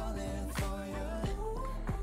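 K-pop song playing: singing with gliding pitch over a steady beat that hits about every 0.6 seconds.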